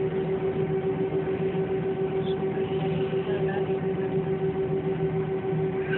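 Airliner cabin noise: the jet engines and air system make a steady hum with a constant droning tone over a rushing background, heard from inside the cabin.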